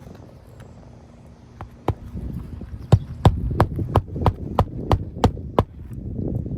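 Nails being driven into a replacement roof shingle: a quick run of about ten sharp strikes, roughly three a second, starting about two seconds in, over a low steady hum.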